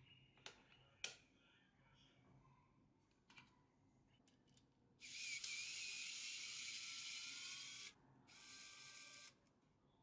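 A few light clicks, then two bursts of high-pitched whirring hiss from a small motorised tool, the first about three seconds long and the second about one second long.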